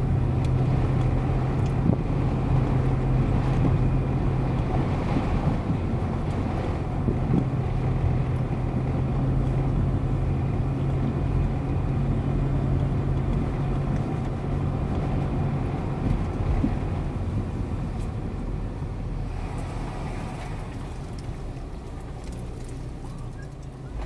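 Car engine and tyre noise heard from inside the cabin: a steady low engine hum over road rumble. The engine tone drops away about two-thirds of the way through, and the noise slowly grows quieter after that.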